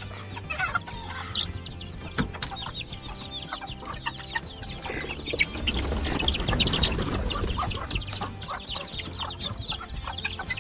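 A flock of chickens clucking and calling, with short calls overlapping throughout. A louder stretch of rushing noise runs through the middle.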